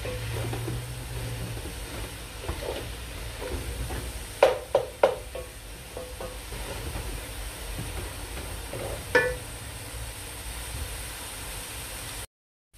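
Mutton mince sizzling as it browns over high heat in an aluminium pan, stirred with a wooden spoon. The spoon knocks on the metal pan three times in quick succession about four and a half seconds in and once more about nine seconds in.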